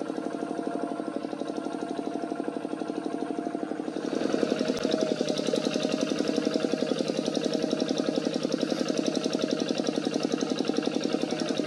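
Kubota single-cylinder diesel engine of a two-wheel hand tractor running with a steady, fast chugging beat. About four seconds in it gets louder and brighter and stays that way.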